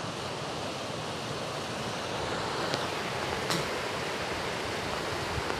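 Floodwater pouring steadily through the breach of a burst earthen dam, a constant rush of turbulent water.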